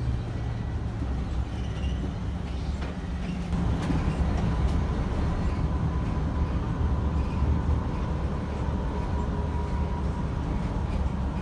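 City bus running along the road, heard from inside: a steady engine drone with road noise. About three and a half seconds in it gets louder and a steady whine joins.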